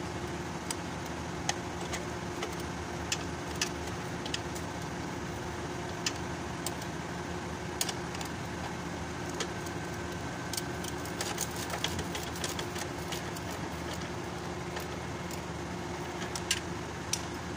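Scattered short metallic clicks and clinks of a car battery's hold-down lock and hand tools being handled while the battery is fitted, over a steady background hum.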